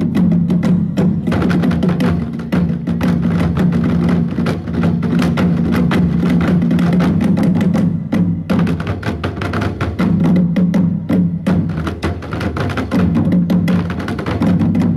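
Percussion music: rapid, dense drum and wood-block-like strikes over a steady low drone, the drone dropping out briefly about eight seconds in.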